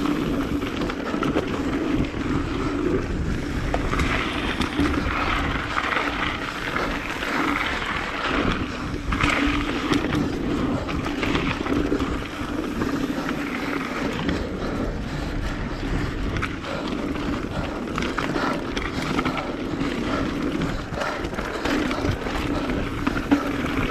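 Mountain bike riding a dirt trail, heard from a camera on the bike or rider: tyres rolling over dirt, the bike rattling and knocking over bumps, and wind on the microphone, with a steady low hum throughout.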